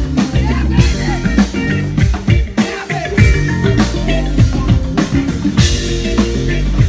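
A live band playing loud music on stage, with drum kit, electric guitar and a heavy bass line driving it.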